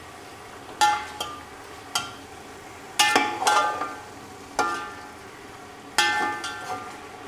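A steel slotted spatula clanging and scraping against a large aluminium pot about once a second, each hit ringing briefly, as it stirs chicken. Under it, the chicken and ginger-garlic paste sizzle steadily in hot oil as they fry.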